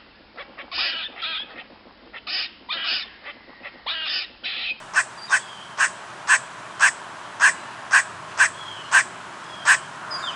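Squirrel alarm calls: harsh chattering calls come in bursts, then about five seconds in a series of short sharp barks repeats at about two a second.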